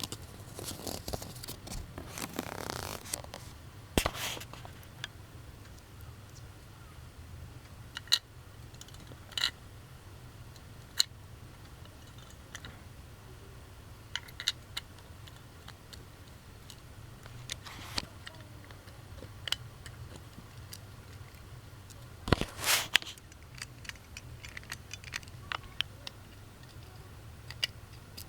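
Small plastic objects being handled: scattered clicks and taps, with short rustling scrapes about two seconds in and again around twenty-two seconds in, over a steady low hum.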